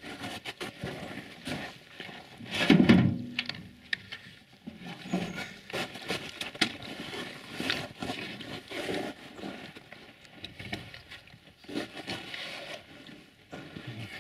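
Knocks, clicks and scraping as a heavy tractor battery is set into its metal tray and its terminal clamps and hold-down bracket are handled. A loud short grunt about three seconds in.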